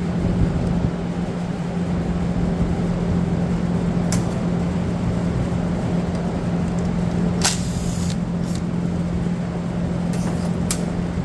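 Steady low hum in the background, with a handful of sharp clicks and taps from a Torx screw being backed out of a string trimmer's plastic housing, the loudest a little past the middle.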